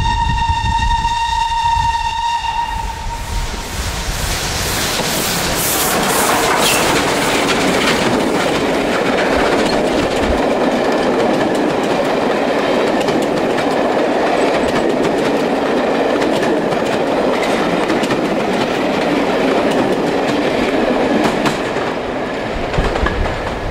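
A steam locomotive's whistle blows, a steady pitched tone for about three seconds. Then the locomotive and its coaches pass close by, with the wheels clicking over the rail joints, and the noise eases a little near the end.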